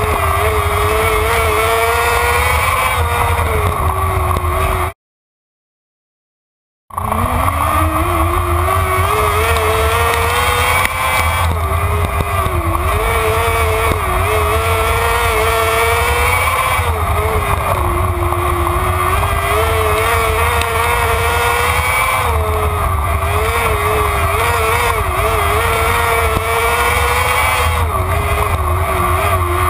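Winged sprint car engine at racing speed, heard from on board. The engine note dips and climbs again every few seconds as the driver lifts and gets back on the throttle. About five seconds in the sound cuts out completely for about two seconds, and it returns with the engine revving up.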